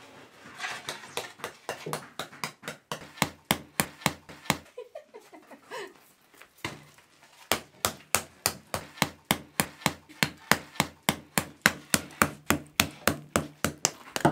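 Sharp knocks as the thick burnt crust of a wood-fired-oven loaf is battered off. An uneven run of blows comes first, then a pause of about two seconds, then a steadier, louder run of about three to four blows a second.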